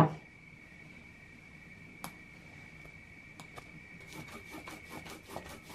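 Stone roller (mano) rubbing corn masa back and forth on a volcanic-stone metate: faint, quick scraping strokes that start about four seconds in, after a couple of light knocks. A steady high-pitched tone sounds throughout.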